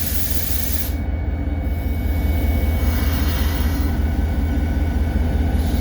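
EMD SD40-2's 16-cylinder two-stroke 645 diesel running in the cab with a steady low drone. A loud hiss of air from the independent brake being applied cuts off abruptly about a second in.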